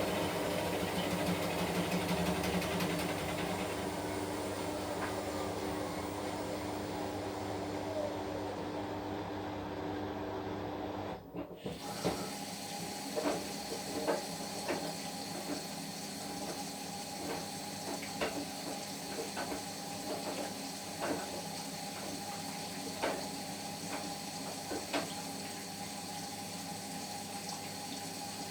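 Washing machine running: a steady motor hum with hissing water, then, after a brief break about eleven seconds in, a quieter hum with water sloshing and irregular small knocks in the drum.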